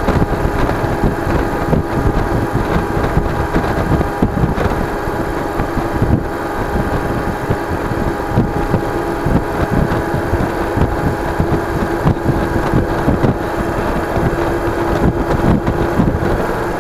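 Yamaha DragStar Classic's V-twin engine running steadily while the motorcycle cruises along, with wind buffeting the camera microphone.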